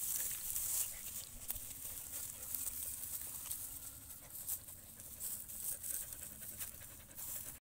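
Dogs panting, a ragged breathy hiss, cutting off abruptly just before the end.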